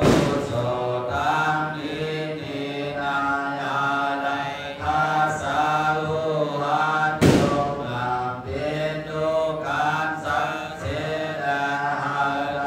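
Buddhist monk chanting into a microphone, a steady, sustained chant on a near-level pitch. Two sharp knocks cut through it, one at the very start and another about seven seconds in.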